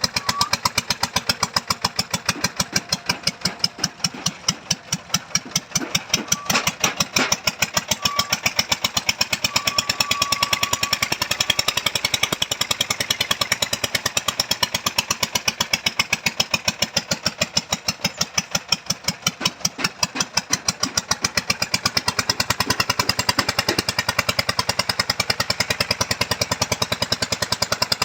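Engine-driven foundation-digging machine running with a rapid, even pounding beat, with a few sharper knocks about six to seven seconds in.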